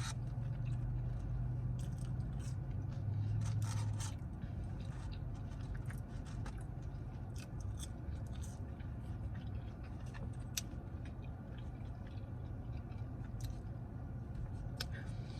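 A person chewing and biting into a bacon cheeseburger, with small mouth clicks and crackles scattered throughout. A steady low hum runs underneath.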